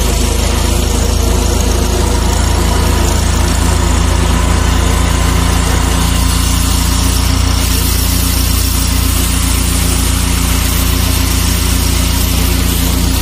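Engine-driven 350-bar high-pressure drain jetter running steadily under load, its engine's drone mixed with the hiss of a high-pressure water jet spraying out of a pipe end.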